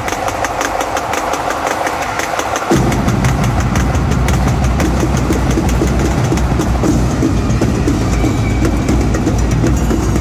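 Drumline playing a loud cadence, with rapid, even strokes throughout. A deep low rumble joins suddenly a little under three seconds in and holds under the strokes.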